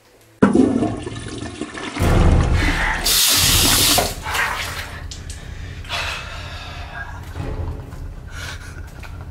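Bathroom sink tap running, water rushing into the basin; it starts suddenly about half a second in.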